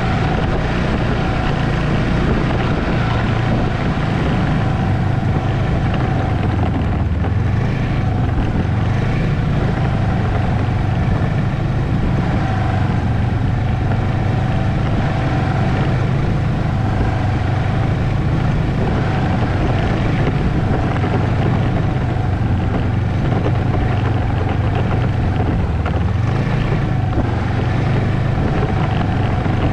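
Ski-Doo Expedition SE snowmobile running steadily along a trail, heard from the rider's seat. Its engine note dips and picks up again twice, about a quarter of the way in and near the end.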